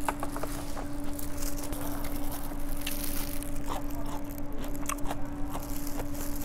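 Close-miked eating sounds: biting and chewing sauced Korean fried chicken (yangnyeom chicken), with many short wet smacks and clicks, over a steady low electrical hum.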